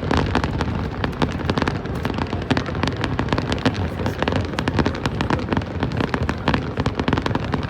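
Aerial fireworks bursting in quick succession: a dense, irregular crackle of sharp cracks and bangs over a continuous booming rumble.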